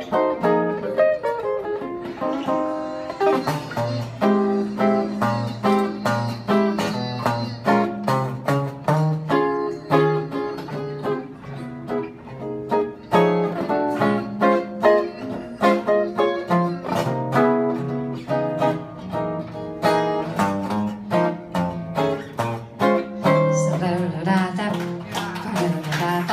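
Jazz guitar solo, picked single-note lines mixed with chords over moving low notes.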